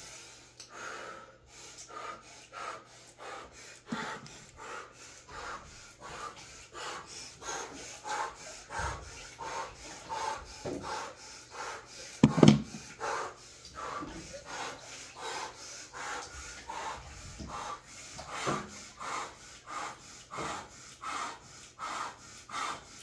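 A woman breathing hard and fast in an ice bath, sharp in-and-out breaths at about two to three a second, the cold-water breathing of the Wim Hof method. One louder burst comes about twelve seconds in.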